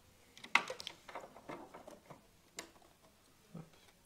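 A few short, scattered clicks and knocks, the loudest about half a second in, from plugging the power cord into a Bernina L890 overlocker and switching it on.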